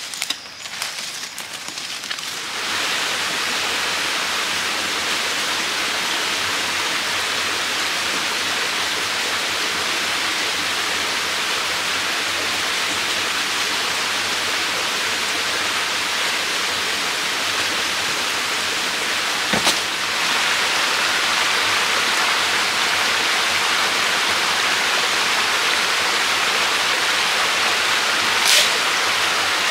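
Small forest waterfall and stream rushing steadily, starting about two and a half seconds in, with a couple of brief sharp clicks, one midway and one near the end.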